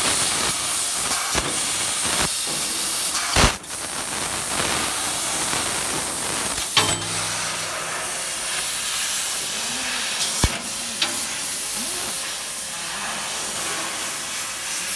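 3 kW fiber laser cutting 3 mm stainless steel: a loud, steady hiss from the cutting head's gas jet and the cut, with a few sharp clicks, the loudest about three and a half seconds in.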